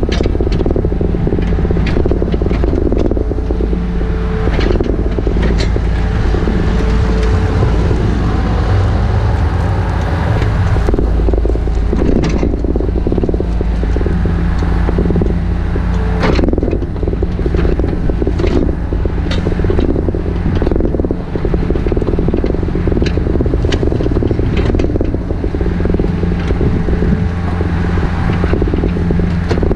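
An engine running steadily at a constant speed, with scattered knocks and scrapes over it.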